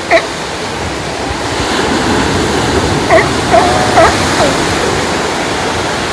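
Ocean surf breaking and washing over a rocky cobble shore, a steady rush. Several short, loud animal calls cut through it, one just after the start and a cluster about three to four seconds in, one of them held on a flat pitch for about half a second.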